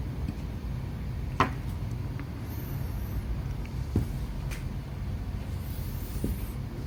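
A steady low background rumble with a few scattered light clicks, the sharpest about a second and a half in.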